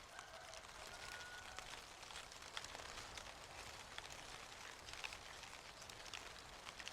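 Falling leaves landing and rustling: faint, irregular light ticks and crackles over a soft steady hiss.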